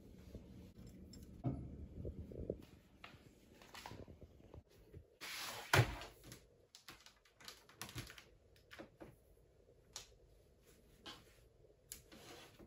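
Objects being handled and set down on a desk: scattered light knocks and clicks as a planner and laptop are moved, with one louder scrape and knock about six seconds in.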